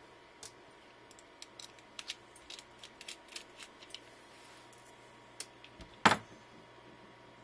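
Small sharp clicks and ticks of a screwdriver working the small screws out of a water block, coming thick and fast for the first four seconds, then sparser. One much louder knock about six seconds in.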